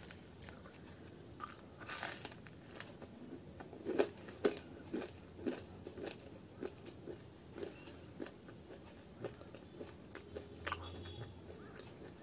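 Someone biting into and chewing a fried muli ki kachori (radish-stuffed kachori). The loudest bites come about four seconds in, then short chewing clicks repeat at about one and a half a second.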